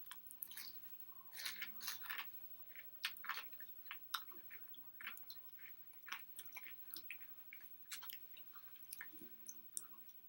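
Close-up chewing of takeout food, with many irregular wet mouth clicks and smacks.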